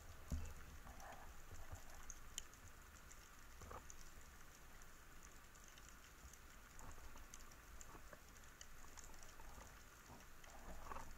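Faint underwater ambience: a low hiss scattered with small clicks and crackles, with one soft low knock right at the start.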